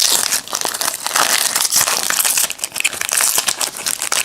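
Wrapper of a trading card pack crinkling and crackling as it is handled and torn open, a dense run of quick crinkles.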